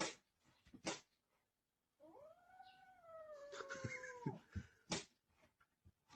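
A cat giving one long, drawn-out meow that rises and then slowly falls in pitch, with a few short knocks before and after it.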